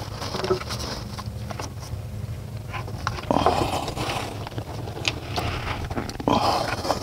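Hands pressing a fuel rail and its injectors down into the intake ports, with short spells of rubbing and scraping and a few clicks over a steady low hum.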